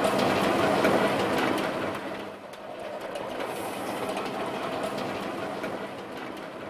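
Meat grinder running steadily with a low hum, mincing pork fat into a paste. It is louder for the first two seconds.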